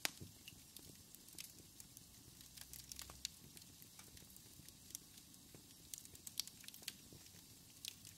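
Near silence, with faint irregular crackling clicks scattered through it.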